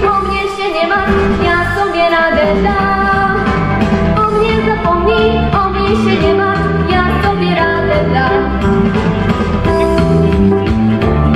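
Pop song: a girl singing into a handheld microphone over a backing track, steady and loud throughout.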